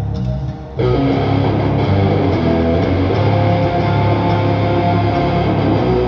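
Rock band music with electric guitars and bass guitar. There is a short drop just under a second in, then the full band comes back in.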